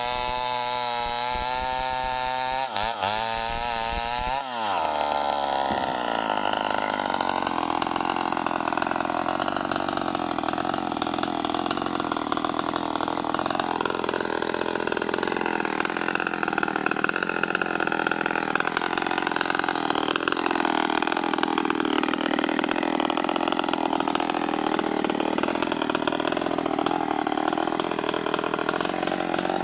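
Small two-stroke chainsaw at full throttle, ripping a log lengthwise into boards. About four seconds in the revs fall away as the cut ends, and the saw settles into a steady idle.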